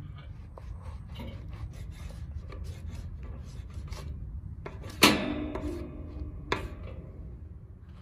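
Kitchen knife cutting raw lamb offal on a wooden cutting board: small taps and scrapes of the blade and meat moving on the board. About five seconds in comes a loud knock with a short ringing, and a smaller sharp knock a moment later, over a steady low rumble.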